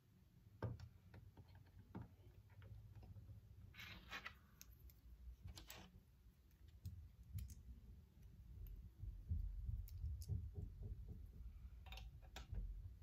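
Small plastic building pieces clicking and clattering as they are picked up and pressed together, with short rustling bursts about four and six seconds in.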